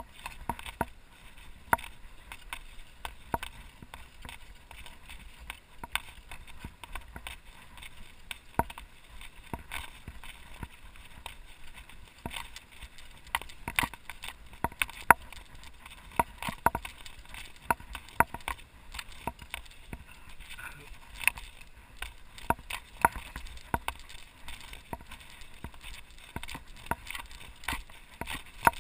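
Mountain bike rattling over a bumpy sandy track, with frequent irregular clicks and knocks from the chain and frame over a low rumble.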